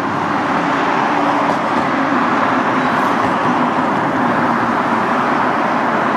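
Road traffic passing close by, a steady rush of vehicle noise.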